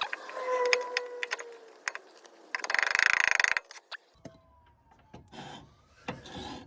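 Metal clicking and scraping as a new brake pad is worked into the caliper bracket, with a loud rapid rattle lasting about a second near the middle.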